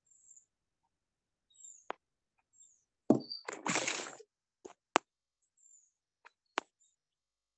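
Scattered short clicks and one brief noisy rustle about three seconds in, picked up by open microphones on a video call while the line is otherwise quiet.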